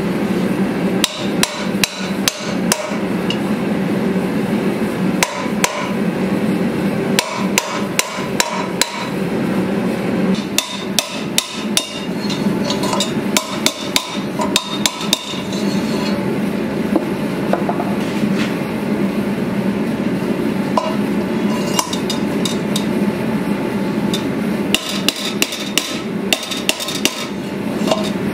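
Hammer striking a red-hot iron sword guard to seat it over the tang against the blade's shoulders, in quick runs of sharp metal-on-metal strikes with pauses between, over a steady low hum.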